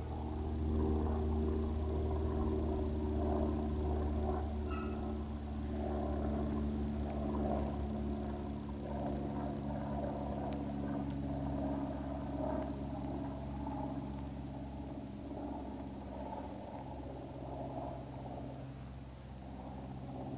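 A steady low engine-like hum runs throughout, with faint, intermittent baying of a distant beagle pack running a rabbit over it.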